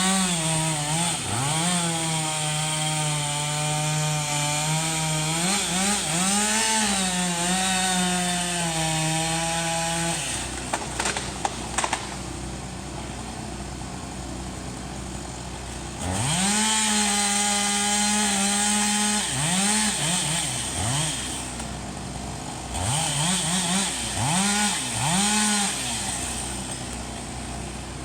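Two-stroke chainsaw running at high throttle with small wavers in pitch, dropping to a lower idle about ten seconds in. It revs up again about six seconds later, then gives a series of short throttle blips before settling back to idle near the end.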